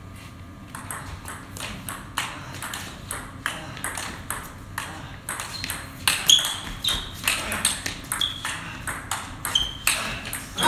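Table tennis rally: a steady run of sharp clicks as the plastic ball strikes the bats and the table, louder from about six seconds in.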